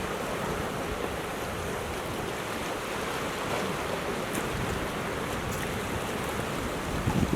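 Ocean surf on a rocky coastline: a steady rush of waves, swelling louder and deeper near the end.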